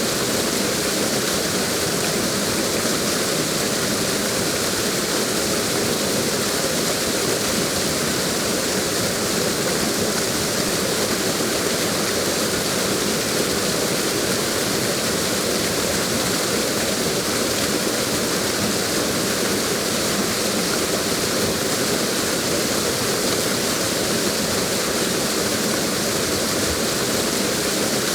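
Waterfall rushing, a steady, even roar of falling water with no breaks or changes.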